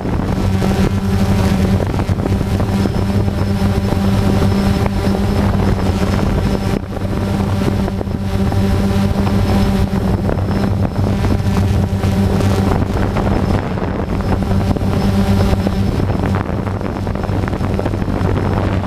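DJI Phantom 2 quadcopter's motors and propellers running with a steady hum and a faint high whine, with wind noise on the microphone.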